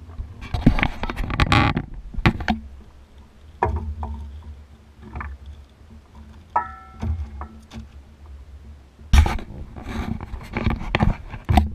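Knocks, scrapes and rustles of handling in a small boat as a smallmouth bass is landed and unhooked, over a steady low rumble, with bursts of wind noise on the microphone early and near the end. A brief tone of about a second sounds near the two-thirds mark.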